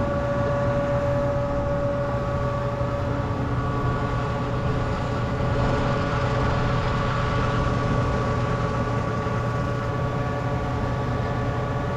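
Heavy diesel machinery running steadily at constant speed, a low engine hum with a steady whine over it.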